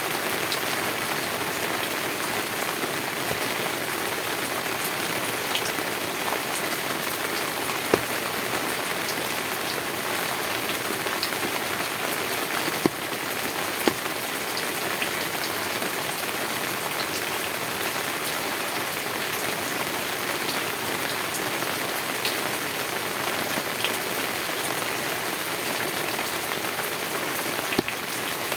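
Heavy rain falling steadily on a tin roof, a dense even hiss with a few louder single drop impacts standing out, about 8, 13, 14 and 28 seconds in.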